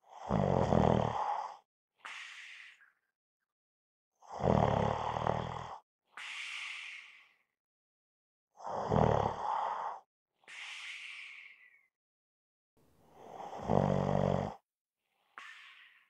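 A person snoring: four loud, low snores about four seconds apart, each followed by a quieter, airy breath.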